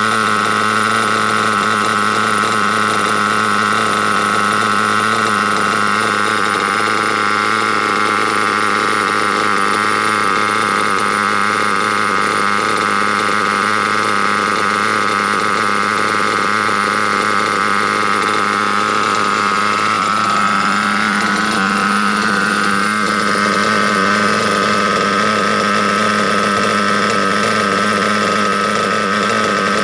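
Go GX5-r nitro engine in an RC buggy idling steadily on 20% nitro fuel. Its pitch wavers briefly about two-thirds of the way through and it runs a little louder just after.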